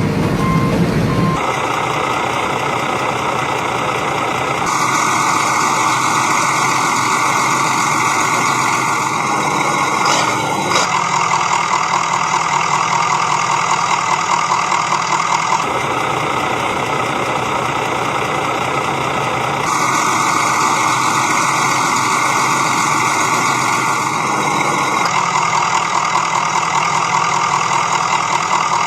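Construction-truck engine running, with reversing beeps, the sound switching abruptly every few seconds.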